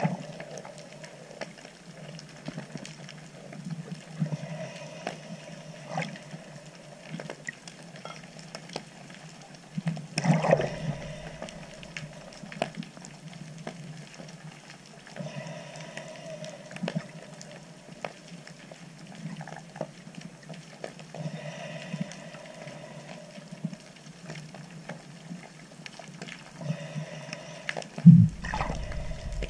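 Underwater ambience picked up by a submerged camera: a steady low water hum with scattered crackling clicks. Two louder knocks with a low rumble break in, about ten seconds in and again near the end.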